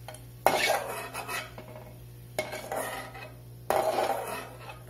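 Perforated metal ladle scraping and clinking against the inside of an aluminium kadai in three short bursts, scooping fried cashews and raisins out of the ghee.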